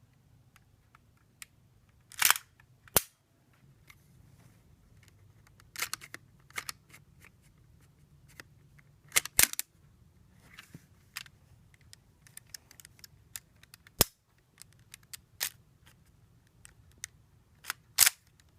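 Custom Lego blowback pistol being worked: sharp plastic snaps and clacks from the brick mechanism, with about eight loud ones spaced irregularly between lighter clicks.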